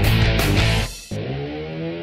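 Background rock music with electric guitar; about a second in the drums drop out briefly, leaving held guitar notes.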